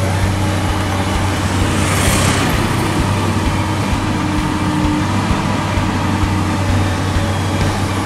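Komatsu PC200 hydraulic excavator's diesel engine running steadily while the machine digs and swings a bucketful of soil, with a brief hiss about two seconds in.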